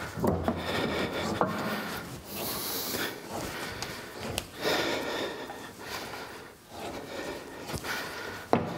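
A cap-head screw being turned by hand with a T-handle hex wrench through a lathe saddle into the apron, its thread just starting to catch: continuous rubbing and scraping with a few sharp clicks.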